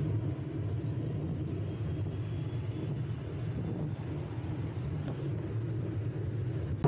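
Steady low rumble of a bicycle ride from a bike-mounted camera: wind on the microphone and road noise, with car traffic on the road.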